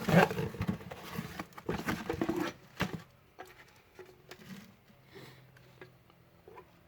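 Car parts and their packaging being rummaged through in a box: rustling and clattering with sharp clicks, busiest for the first three seconds, then a few scattered light clicks.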